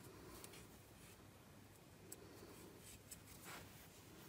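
Near silence, with faint rustling and a few light ticks of a crochet hook working through yarn.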